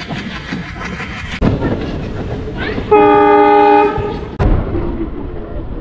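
Passenger train running with a steady rumble, and the locomotive's horn sounding once for about a second about three seconds in. The horn is a chord of several steady tones and is the loudest thing.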